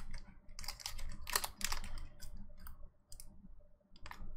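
Foil wrapper of a Pokémon booster pack crinkling and tearing as it is opened by hand: a string of sharp, irregular crackles, thickest in the first two seconds, then a brief lull and one more crackle near the end.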